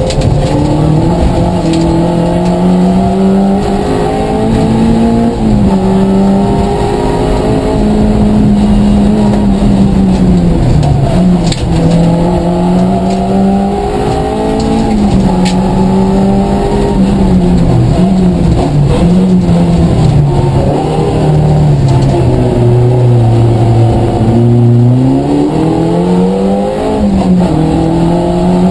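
Vauxhall Astra Mk2 1400 rally car's four-cylinder engine at full stage pace, heard from inside the cabin. Its pitch climbs through the gears with a drop at each change. It sinks low as the car slows about three-quarters of the way in, then climbs steeply again, over a steady rush of tyre and gravel noise.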